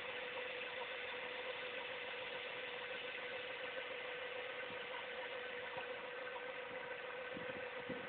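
A 1998 Ford Mustang's 3.8-litre V6 idling steadily, with a steady pitched tone standing out over the running. This is the idle noise that has been getting louder over a few months and whose source the owner cannot find.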